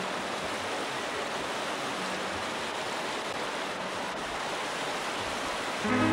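Steady rush of whitewater river rapids pouring over and around boulders. Music comes in at the very end.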